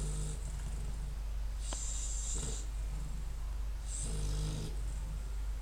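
A sleeping dog snoring: three snoring breaths about two seconds apart, each a low snore with a hiss on top.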